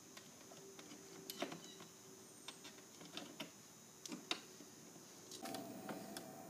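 Light scattered clicks and taps of a trim pry tool working behind a bowtie emblem on a car's front fascia, prying at the emblem's plastic snap clips. Near the end a faint steady hum comes in.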